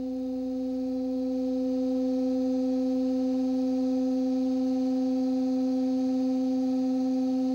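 Two air-blown pipes on a wind chest sounding one steady pitched tone, growing louder over the first couple of seconds and then holding level. The pipes are brought into resonance with each other, so they sound as a single steady note.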